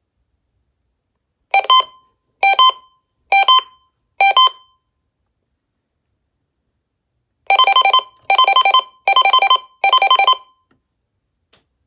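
Uniden WX100 weather alert radio sounding its alert siren in a test: four short two-tone warbling beeps a little under a second apart, a pause of about three seconds, then four longer, faster-warbling beeps.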